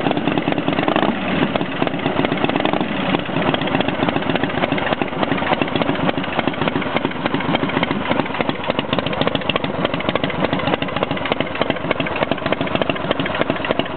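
Freshly rebuilt motorcycle engine, just cold-started, running steadily at a fast idle on choke.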